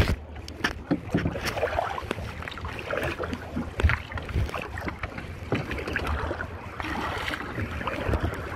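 Paddle strokes splashing and dripping in the water beside a canoe, with irregular knocks and clatter on the hull and wind buffeting the microphone.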